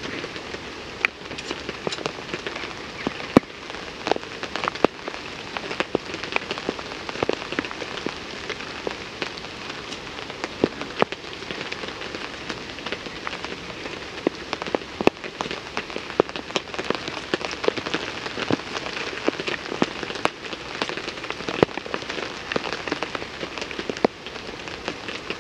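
Heavy rain falling on a tarp shelter: a steady hiss of rain with many sharp, irregular drop hits.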